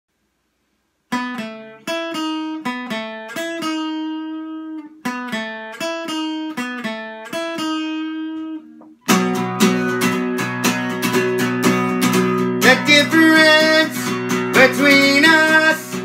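Acoustic guitar opening a song. A figure of single picked notes is played twice, then at about nine seconds in the guitar switches to full strummed chords.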